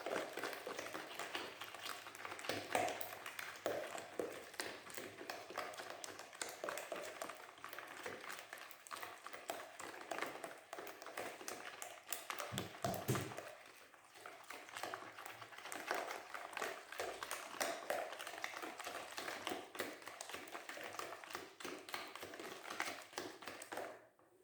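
A whisk beating eggs, sugar and oil in a bowl, a fast continuous clatter of taps against the bowl, pausing briefly about halfway through.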